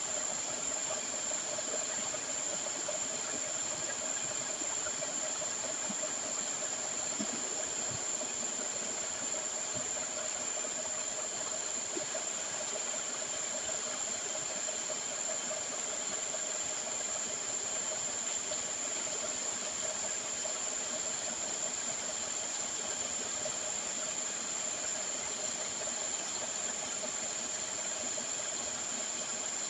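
Steady rushing hiss of slurry pouring from two pipes through cloth filter bags into a concrete sump as gold-processing tanks are emptied, with a constant high-pitched whine over it.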